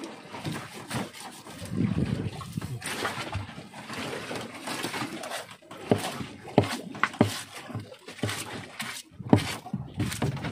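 A long knife cutting and scraping through raw tuna flesh along the backbone on a wooden deck, with irregular sharp knocks as the blade and fish meet the boards.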